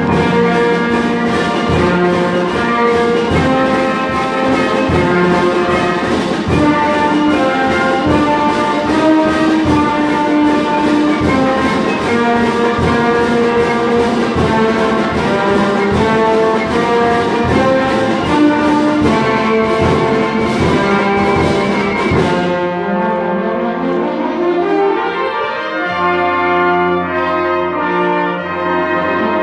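Wind orchestra playing a Christmas carol arrangement, brass to the fore, over a steady percussion beat. The beat drops out about three-quarters of the way through, leaving rising runs and held low notes.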